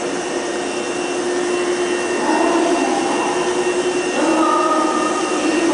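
Hankyu 5100 series electric train running along the platform: a steady whirring drone with a faint high whine, growing a little louder about two and four seconds in.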